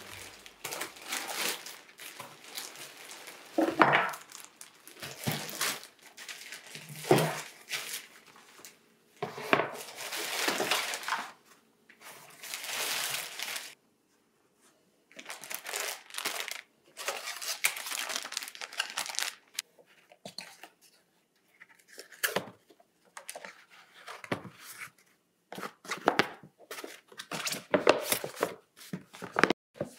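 Plastic shopping bag and product wrappers crinkling and tearing as purchases are unpacked, in irregular bursts with short pauses. In the second half the rustling turns into shorter, sharper clicks and knocks of items being handled and set down.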